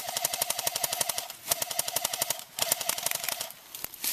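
Airsoft electric gun firing on full auto in three long bursts of rapid clicks, with the gearbox motor's whine running under each burst.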